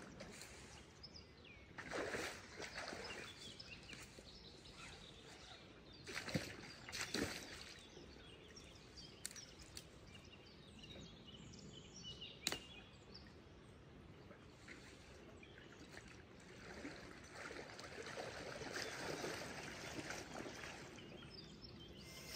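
Faint outdoor ambience beside a small stream: a low steady background of moving water, with a few short knocks and rustles scattered through, the sharpest a click about twelve seconds in.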